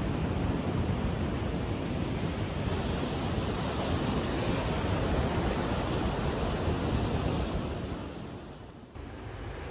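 Ocean surf breaking and washing up a sandy beach, a steady rushing noise. It fades down near the end and cuts off sharply about nine seconds in.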